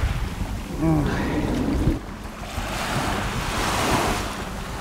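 Sea waves washing onto a beach, swelling and easing, with wind buffeting the microphone.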